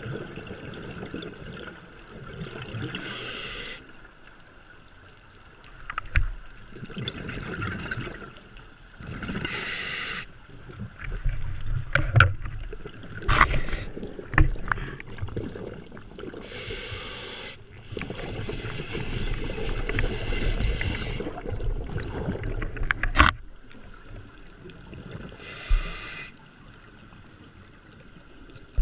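Scuba diver breathing through a regulator underwater: four short hissing inhales about every seven seconds, each followed by a longer rumble of exhaled bubbles. A few sharp clicks or knocks come in the middle and near the end.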